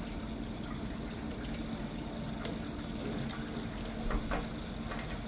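Water running from an endoscope reprocessor's filter tube into a container, over a steady low machine hum.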